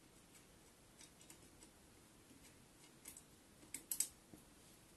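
Faint, scattered clicks and light metal taps from hands working the parts of a Monorim suspension bracket on a scooter's front fork, with a sharper cluster of clicks about three to four seconds in.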